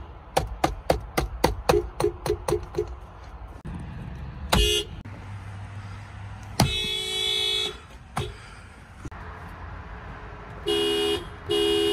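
Subaru car horns honking. First comes a rapid string of about ten short toots, roughly four a second, then a single short toot and a honk of about a second. Two half-second honks follow near the end.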